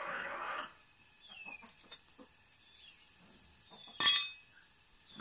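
A single sharp clack about four seconds in, the loudest sound, as the black handle lever of a PCP high-pressure hand pump is set down on the concrete floor. Before it, a short rough noise at the start and a few faint bird chirps.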